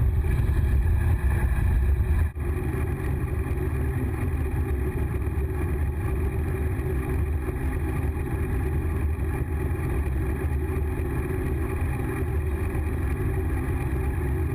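Riding noise of a mountain bike on the move, picked up by an action camera: steady wind noise over the microphone and tyres rolling, first on a gravel track and then on smooth paved road after a short break about two seconds in.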